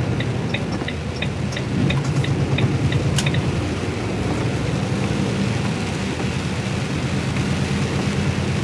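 HGV lorry driving on a wet road in heavy rain, heard from inside the cab: a steady engine drone under rain and road noise. A light regular ticking, about three a second, stops about three seconds in.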